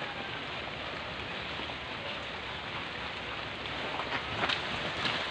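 A steady even hiss. From about four seconds in come sharp crackles and rustles of banana leaves and stalk as the plant is pulled at with a long pole.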